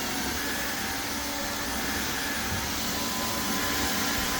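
Airthereal Vactide wet-dry vacuum running steadily at full speed in Intelligent mode, a dense even whoosh with a steady whine over it.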